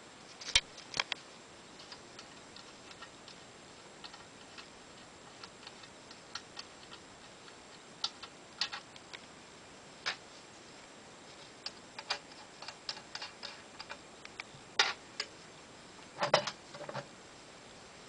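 Irregular light clicks and small knocks, unevenly spaced and sometimes in quick clusters, with the loudest knocks about half a second in and near the end.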